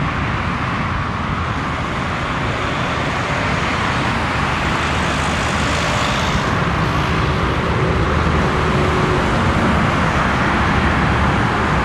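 Scania V8 diesel truck engine running steadily on the move, with an even rush of road and wind noise.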